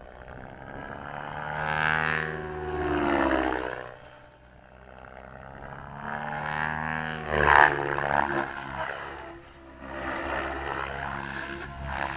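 Radio-controlled helicopter flying 3D aerobatics: its rotor and motor whine rises and falls in pitch as it swoops and passes, with loud swells about two to three seconds in and again around seven to eight seconds.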